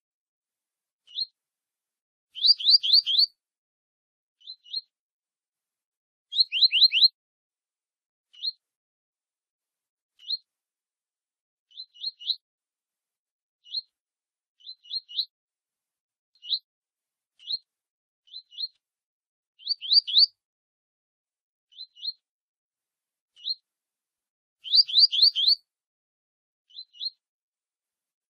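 Double-collared seedeaters (coleiros) chirping in the 'tui tui' style. Short, high, downward-sliding notes come every second or two, some single or paired and some in quick runs of four or five.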